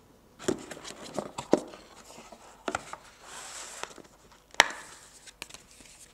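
Cardboard phone box being opened by hand: light knocks and clicks as the box and lid are handled, a soft sliding rub as the lid comes off, and one sharper knock about four and a half seconds in.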